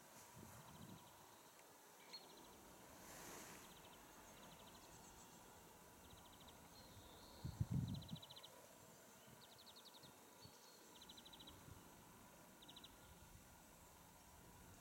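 Quiet outdoor ambience with short, rapid high trills repeating every second or so. A low thump about halfway through.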